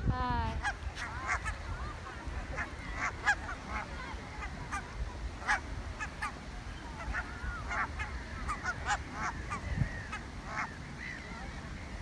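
A flock of barnacle geese calling: many short honks overlapping throughout, over the low rumble of wind on the microphone.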